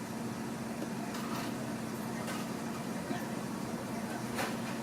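Car engine idling, heard from inside the cabin as a steady low hum, with a few faint clicks.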